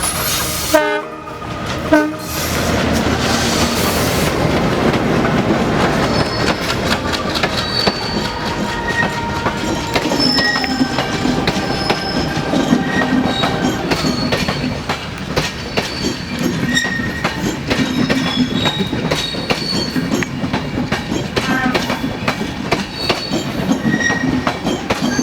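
A train running on the rails: a steady rumble with the wheels clacking rhythmically over the rail joints and brief high wheel squeals.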